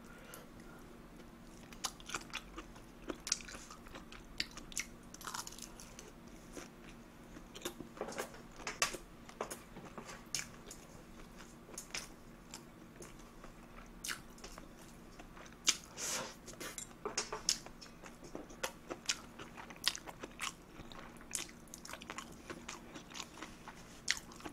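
A person chewing and eating tuna kimchi fried rice and instant ramyeon close to the microphone. There are irregular wet mouth clicks and smacks, with no words.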